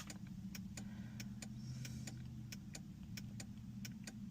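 Car's hazard-light flasher ticking evenly, about three ticks a second, over a faint low steady hum.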